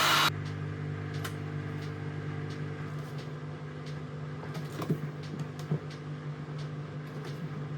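A heat gun's rush of air cuts off just after the start, leaving a steady low hum. A few faint clicks and creaks come from the plastic headlight being handled as its lens is worked loose from the softened butyl sealant.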